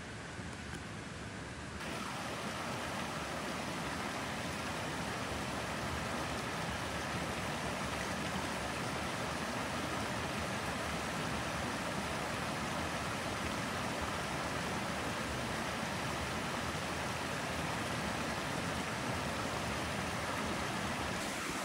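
Abrams Creek rushing over a low rock ledge in small cascades, a steady rush of water that steps up in loudness about two seconds in.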